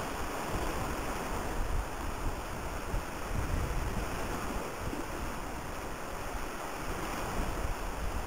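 Steady rushing wind noise, with irregular low gusts buffeting the microphone.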